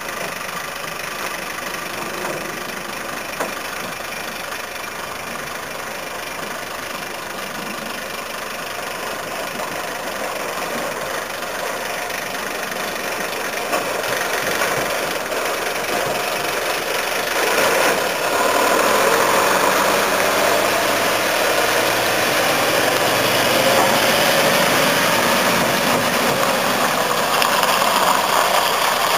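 Diesel engine of a six-wheeled military truck running as it drives off a railway flat wagon onto the dock and pulls away, growing louder from about two-thirds of the way through.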